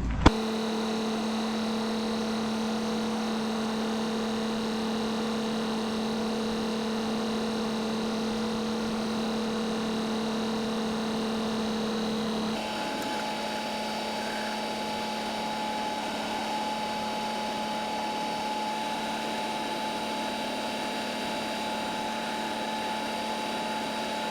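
Tractor engine running steadily, a constant hum whose pitch shifts about halfway through.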